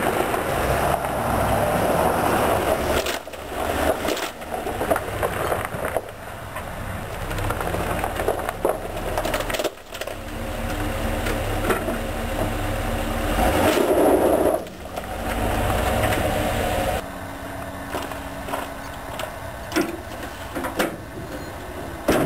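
Chevrolet pickup truck rolling over a laptop on gravel: engine running, tires crunching the gravel, and the laptop crunching and cracking under the wheel.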